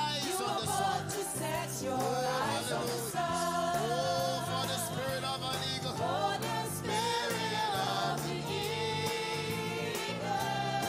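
Gospel choir singing with instrumental backing: long, wavering sung notes over a repeating bass line.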